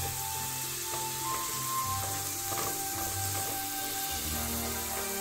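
Finely chopped onion sizzling in melted butter in a frying pan, stirred with a silicone spoon through the browned crust left by fried pork chops, with background music playing.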